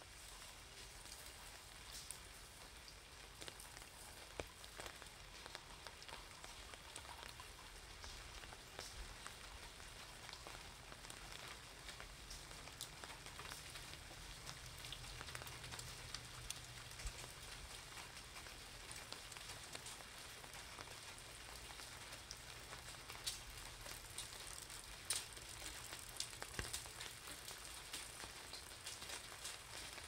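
Steady light rain under an umbrella, a soft hiss scattered with sharp ticks of single drops striking the umbrella and wet pavement. A faint low hum comes in for a few seconds in the middle.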